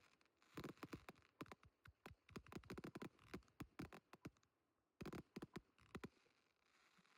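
Fireworks crackling: clusters of rapid sharp pops and cracks come in bursts, with a short lull partway through.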